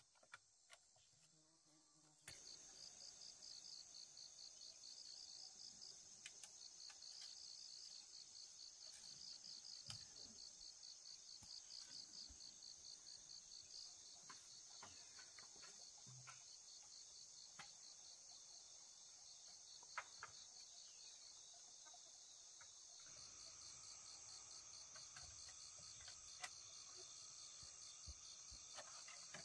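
Faint insects chirring in a steady high-pitched drone, starting about two seconds in, with a rapid pulsing chirp over it for several seconds. A few faint scattered taps sound here and there.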